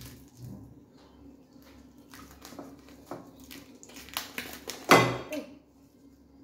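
Plastic wrap crinkling and crackling as it is peeled off a ball of fufu, in a series of short sharp crackles with a louder knock about five seconds in.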